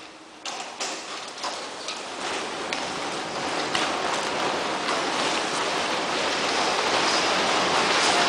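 Large stage curtain snatched away by automated rigging: a few sharp clicks as it lets go, then a rushing noise of fabric and rigging that grows steadily louder.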